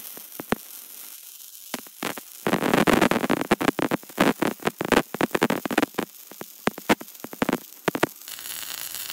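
MIG welding arc running metal-cored wire (Select Arc 70C-6 LS) from a Fronius TransSteel 2700 on carbon steel plate: a dense crackle and hiss with sharp pops, sparse at first and filling in about two and a half seconds in, thinning near the end. This is a first fill pass at 290 inches a minute of wire feed, and the welder judges from its sound that it needs more voltage.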